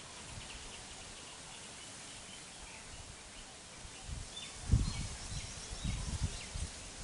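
Faint outdoor ambience with scattered high bird and insect chirps. From about four seconds in come a run of irregular low thumps and rumbles, the loudest a sudden one near five seconds.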